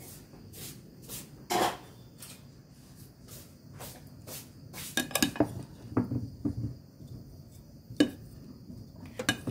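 Kitchen utensils and dishes being handled, a string of scattered clinks and knocks. A sharper knock comes about a second and a half in, and another near the end as a plastic spatula knocks into a glass bowl of boiled potatoes.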